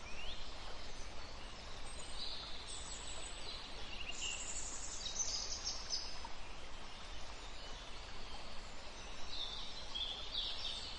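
Forest ambience: a steady background hiss with small birds chirping and twittering, the chirps busiest from about two to five seconds in and again near the end.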